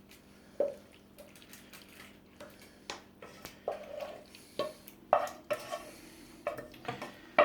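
A spoon knocking and scraping against a pan and baking dish as a tuna pasta mixture is scooped into the tray: a scattered series of wet clinks and knocks, more frequent in the second half.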